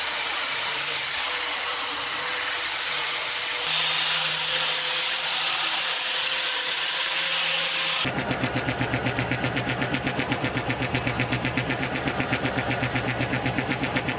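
Wood-carving power tools running: a steady high-pitched tool sound with a whine, then about eight seconds in it switches abruptly to a pulsing motor sound, about five pulses a second.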